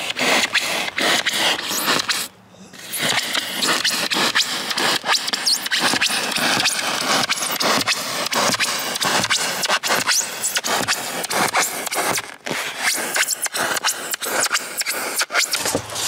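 Pocket knife blade sawing through 2-inch rigid extruded polystyrene foam insulation board: a continuous run of rapid, grating scraping strokes, with a short pause about two and a half seconds in.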